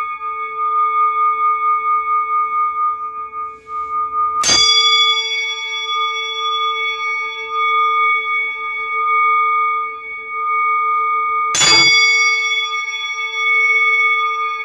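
Singing bowl ringing with a steady, gently wavering tone and bright overtones. It is struck twice, about four and a half seconds in and again about seven seconds later, each strike renewing the ring.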